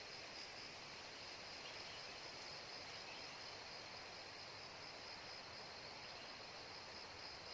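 Faint steady insect chorus: a constant high buzz that pulses slightly, over a soft outdoor hiss.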